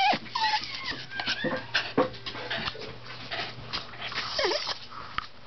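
Wire fox terrier whimpering in short, high whines, one wavering whine near the end, with scattered clicks and rustling close to the microphone.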